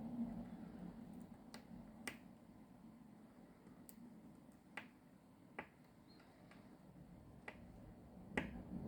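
Small metal repair tools clicking and tapping against the internal parts of a smartwatch: about six sharp, separate clicks at uneven intervals, the loudest near the end.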